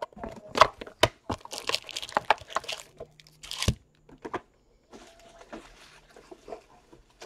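Cardboard trading-card hobby box being torn open and a foil-wrapped card pack pulled out: a run of sharp cracks, tearing and crinkling for about four seconds, then faint rustling.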